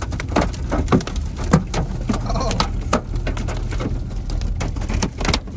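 Hailstones pelting a storm-chase vehicle's body and windshield: a dense, irregular barrage of sharp knocks over a low steady rumble.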